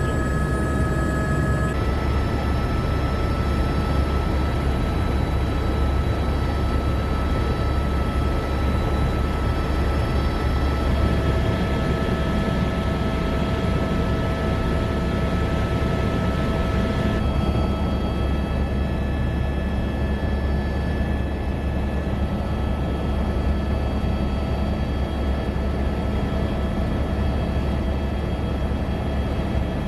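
Helicopter engine and rotor noise: a steady deep drone with several steady whining tones above it, which change abruptly about two seconds in and again around seventeen seconds.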